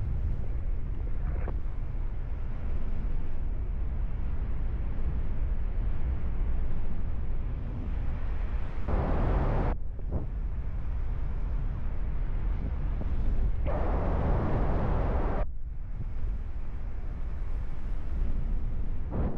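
Strong wind buffeting the microphone of a paraglider in flight, a steady low rumble. Two louder bursts of hiss come about nine and fourteen seconds in, each cutting off sharply.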